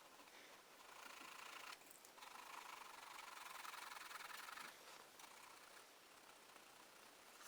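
Faint pencil rubbing on paper in two stretches of strokes, a short one about a second in and a longer one from about two to nearly five seconds.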